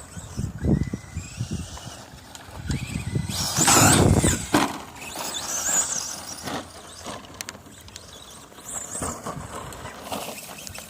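Team Associated SC10 radio-controlled short-course truck being driven on loose dirt, its motor whining up and down in bursts with the throttle, loudest about four seconds in.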